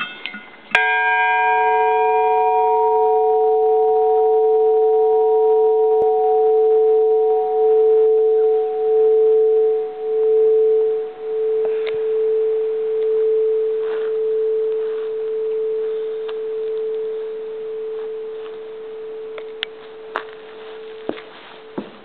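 The Fort Ross church bell struck once and left to ring out. The higher overtones die away within a few seconds, while the deep main tone hums on for about twenty seconds, slowly swelling and fading in loudness as it decays. A few faint clicks come near the end.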